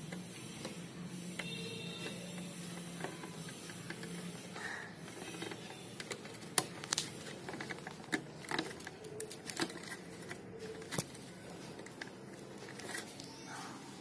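Plastic wire-harness connectors and wires being handled and pushed onto a refrigerator's control circuit board: scattered sharp clicks and rustling, thickest in the second half, over a low steady hum in the first few seconds.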